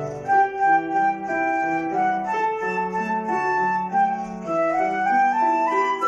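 Transverse flute playing a melody of held notes, with a grand piano accompanying underneath in chords.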